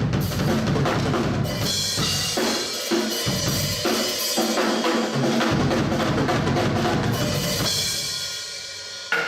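Drum-driven music, with bass drum and snare playing hard, fading down near the end.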